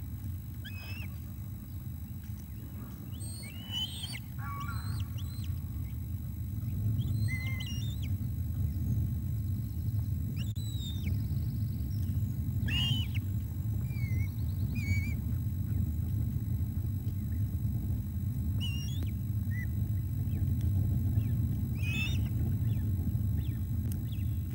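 Ospreys on the nest giving short, high chirping calls and falling whistles, scattered a few seconds apart, over a steady low rumble.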